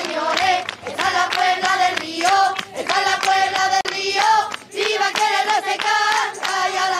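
People singing a song together, with hand clapping in time.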